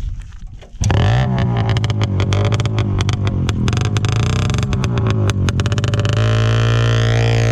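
Two-stroke moped engine started about a second in and running with a fast crackling patter, then settling into an even, steady drone near the end.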